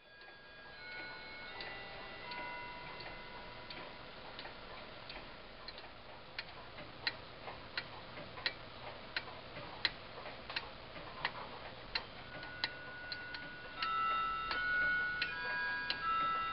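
Pendulum wall clock's time-only movement ticking steadily, about one and a half ticks a second, the ticks growing clearer after about six seconds. Soft held tones sound alongside and get louder near the end.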